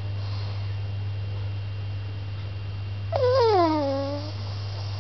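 A pug gives one drawn-out whine about three seconds in, falling in pitch over about a second, over a steady low hum.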